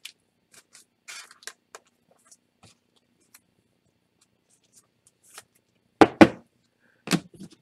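Faint rustles and clicks as a trading card is slid into a thin plastic penny sleeve and handled. About six seconds in come two loud, sharp handling knocks close together, then another a second later, as the hands move cards and packs on the desk.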